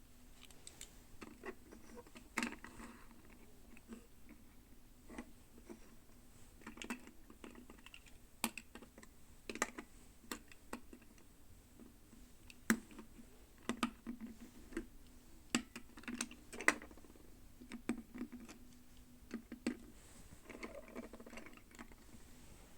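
Hands handling small plastic toy parts and packaging during a doll unboxing: irregular light clicks and taps, with a few brief crinkles.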